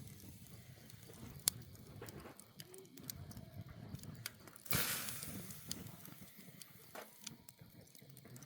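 Campfire crackling and popping after being sprayed with water, with a sharp pop about a second and a half in and a short burst of hissing about five seconds in.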